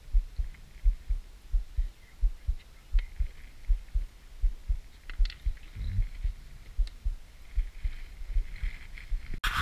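Small waves slapping against the hull of a fishing boat, a regular run of low thumps about twice a second.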